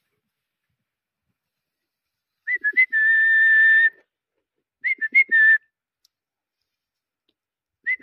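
A person whistling to call a loose horse. A few short chirps lead into a long held note about two and a half seconds in, a second, shorter phrase of chirps and a held note comes about five seconds in, and another begins at the very end.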